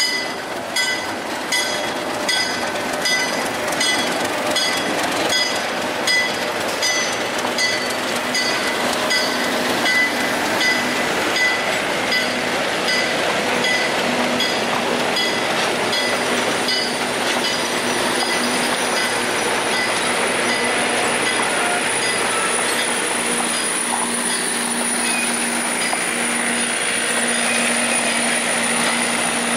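A PeruRail diesel locomotive and its passenger coaches rolling past at slow speed: for the first half the wheels click over the rail joints at a steady beat, then they settle into a steady rumble with a thin high whine from the wheels past the middle.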